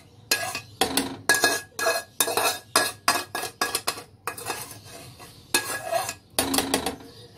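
Slotted metal spoon scraping and clinking against a metal pan in quick repeated strokes, scraping the last of the jaggery syrup out onto the rice. The strokes ease off a little past the middle and come again near the end.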